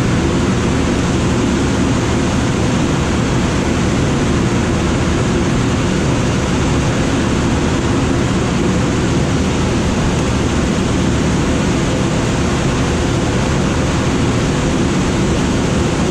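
Steady loud rushing noise inside a glider cockpit on aerotow, air streaming over the canopy with a low rumble beneath. It holds even throughout.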